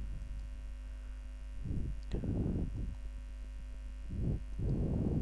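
Steady low electrical mains hum picked up by the recording microphone, with three soft, low, wordless puffs of sound about two, four and five seconds in.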